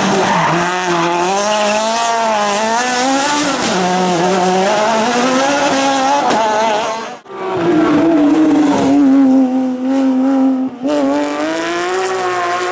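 Citroën Saxo rally car's engine at high revs, its pitch rising and dropping with throttle and gear changes as it slides through a corner and pulls away, with tyre squeal. About seven seconds in, a sudden cut to a second rally car's engine held at a steady high note, then dipping and rising again.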